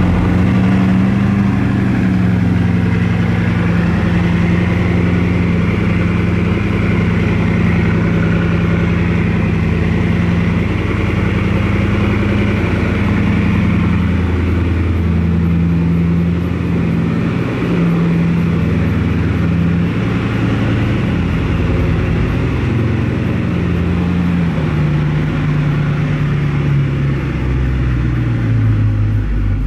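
Bugatti Chiron Sport's quad-turbocharged W16 engine running at low, fairly steady revs, its pitch wavering slightly and dropping near the end.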